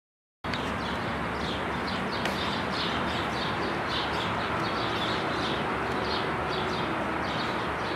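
Small birds chirping over and over, short high chirps about twice a second, over a steady rushing background noise; the sound starts abruptly about half a second in.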